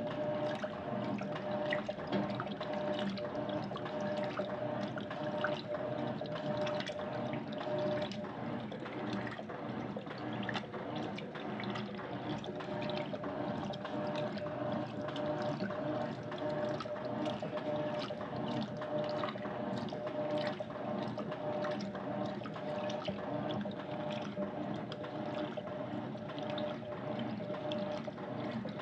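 Electrolux LTC10 top-loading washing machine with water running and splashing inside the tub, over a steady hum.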